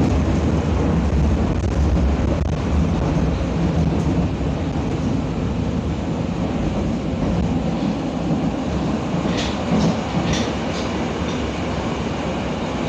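Berlin U-Bahn F79.2 train running, heard from inside the passenger car: a steady rumble of wheels on rails, with the deep low rumble easing after the first few seconds. A few short, sharp clicks come about nine to ten seconds in.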